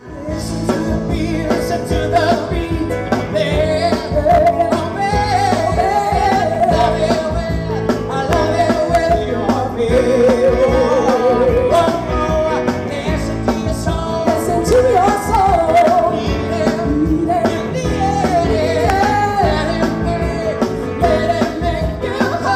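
A man and a woman singing into microphones over an amplified live band, in a rock-and-roll style with wavering held notes. The sound comes in abruptly at the start.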